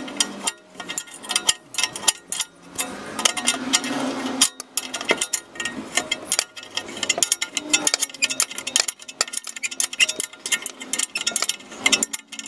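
Ratchet spanner clicking in rapid runs while loosening a bolt on an exhaust flange joint, with small metal clinks.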